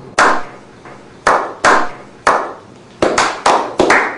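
Slow clap by a small group: single hand claps about a second apart at first, quickening into faster, overlapping clapping in the last second.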